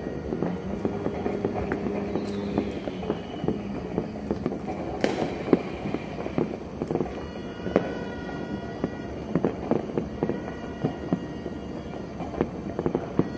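Many distant New Year firecrackers and fireworks going off across a city, an irregular stream of pops and bangs with one louder bang about five seconds in. A few held tones and a falling whistle sound over the bangs.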